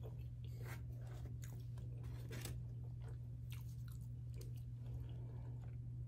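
A person chewing and crunching garlic bread close to the microphone: irregular crisp crunches and mouth sounds over a steady low hum.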